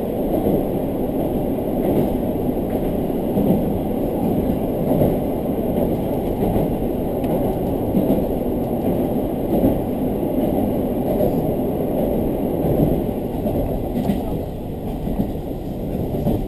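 Steady low rumble of a diesel railcar running along the line, heard from inside the carriage: wheels on the rails and the engine together.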